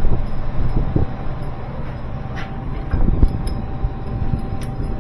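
Low, uneven rumble of a running engine with a faint steady hum, and a few faint light clicks.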